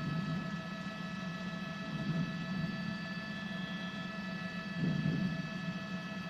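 Steady mechanical drone of a news helicopter in flight, picked up by the reporter's open microphone: a constant low hum under several fixed whining tones.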